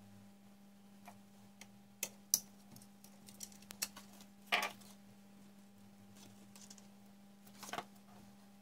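Scattered light clicks and taps from hands working wires loose from the plastic terminal block of a heating programmer's wall backplate, the two sharpest about two seconds in, with short scrapes of handling a little after four and a half seconds and again near the end. A low steady hum runs underneath.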